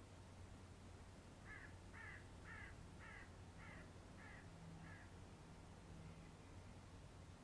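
Faint bird calls: seven short notes in an even series about half a second apart, starting about a second and a half in, over near-silent room tone with a low steady hum.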